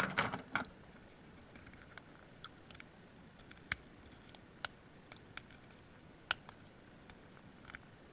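Lock picks working the pins of a Master Lock padlock under heavy tension: faint scraping with scattered light clicks and ticks, a few sharper clicks standing out.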